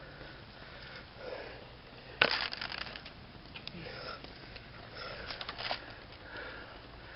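Faint sniffing and breathing with light rustling, broken by one sharp crack about two seconds in and a few small clicks later.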